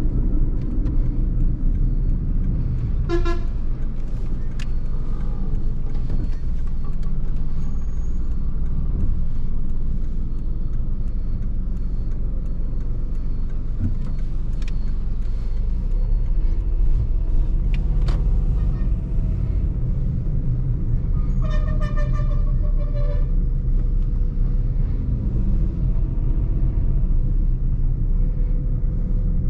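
Toyota Vitz's 1.0-litre three-cylinder 1KR engine and tyres running steadily on the move, a constant low rumble. A car horn toots briefly about three seconds in, and sounds again in two short blasts about three-quarters of the way through.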